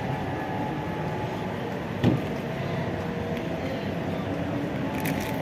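Bus terminal din: buses' diesel engines running at idle in a steady hum, with a single sharp knock about two seconds in.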